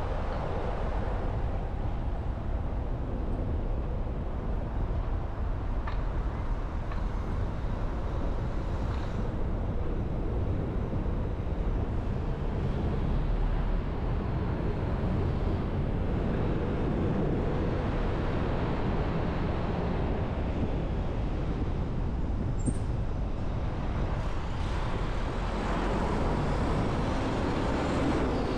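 City traffic and road noise heard from a moving car: a steady rumble of engines and tyres on the street.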